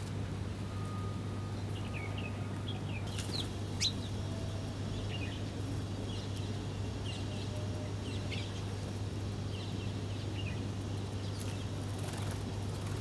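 Small birds chirping: many short, high chirps scattered throughout, with one louder, sharp downward-sweeping call about four seconds in, over a steady low hum.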